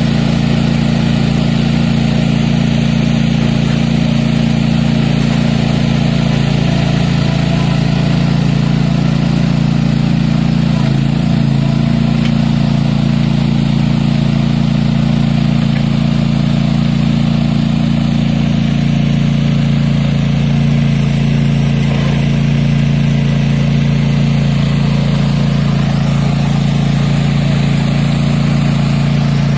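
Cub Cadet ZT1 Ultima zero-turn mower's engine running at a steady speed.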